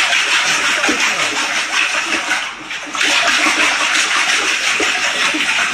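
Water rushing and splashing in a toilet bowl, a steady hiss that dips briefly about two and a half seconds in.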